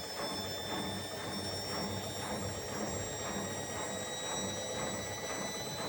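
Washing machine spinning with a football in the drum: a steady motor whine, slowly falling in pitch, over a rhythmic pulsing about twice a second.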